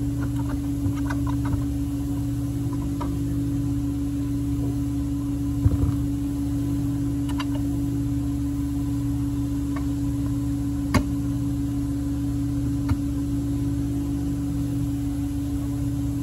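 A few light metallic clicks and knocks as a Honda ATC250R engine side cover is handled and seated against the crankcase, over a steady hum.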